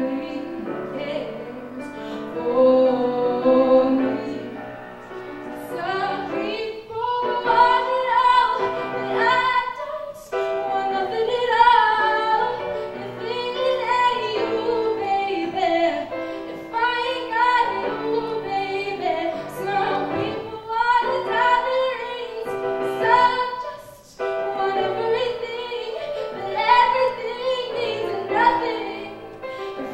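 A woman singing a slow soul ballad while accompanying herself on a grand piano, her voice carried through a microphone over sustained piano chords.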